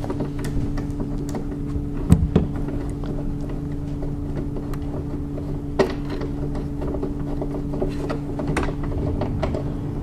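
Hand ratchet with a Torx 50 socket clicking as a seat-belt anchor bolt is loosened and backed out, with a few sharper metal knocks, over a steady low hum.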